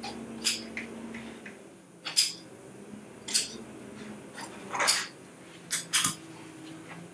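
Upholstery shears snipping into chair fabric: a handful of short, crisp snips a second or so apart, mixed with the rustle of the fabric being handled.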